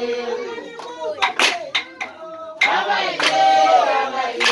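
A group singing a chant with sharp handclaps. The singing drops away in the first half, leaving scattered claps, and a new sung phrase starts about two and a half seconds in.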